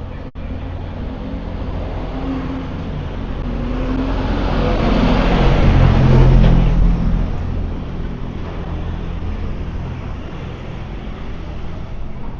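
A motor vehicle with a deep engine passing close by on the street, growing louder to a peak about six seconds in and then fading, over a steady low traffic hum.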